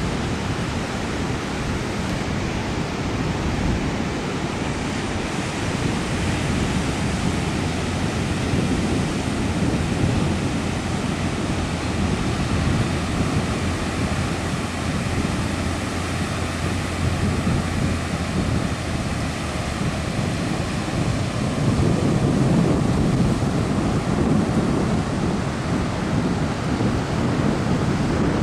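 Ocean surf breaking and washing onto a rocky cobble beach, a steady roar of waves, with wind buffeting the microphone.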